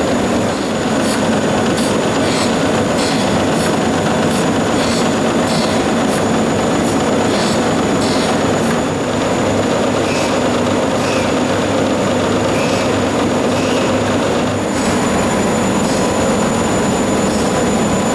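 Jones and Shipman 1400LA surface grinder running: a steady mechanical hum with a thin, high, steady whine and a run of light, regular clicks.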